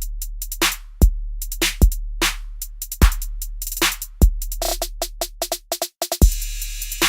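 Background music: an electronic drum-machine beat with kick drum and hi-hats and a short run of repeated notes, cutting out briefly before a fuller section starts near the end.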